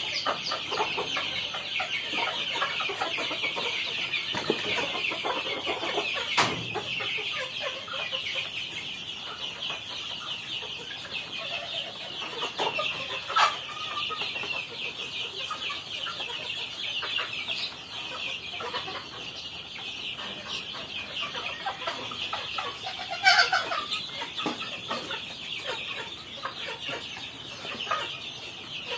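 Flock of young chickens clucking and peeping in a steady high-pitched chorus. A few louder calls stand out, the loudest about 23 seconds in.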